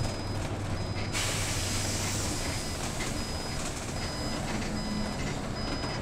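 City bus engine running low, with a short high electronic beep repeating a little faster than once a second. About a second in, a loud hiss of compressed air from the bus's air system starts suddenly and slowly fades.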